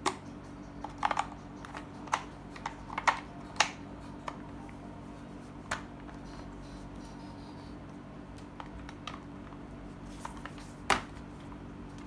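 Hard plastic clicks and knocks as a foam cannon's quick-connector is worked onto the end of a pressure washer gun. The clicks are irregular, bunched in the first four seconds with a sharp one near the end, over a steady low hum.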